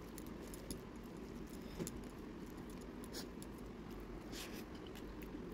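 Fingers mixing rice and curry on a stainless steel thali: faint scrapes with a few small, sharp clinks against the metal plate, spaced about a second apart.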